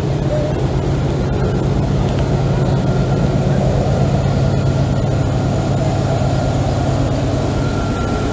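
Diesel locomotive engine running with a steady, heavy low rumble, and no horn sounding.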